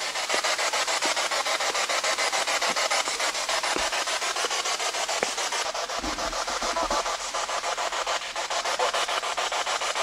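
Spirit box sweeping through radio stations: hissing static chopped into a fast, even stutter.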